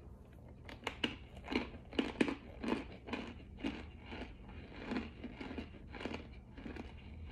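Close-up biting and chewing of a hard, crunchy substance: a run of sharp, irregular crunches about two a second, loudest in the first few seconds and then softer as it is chewed down.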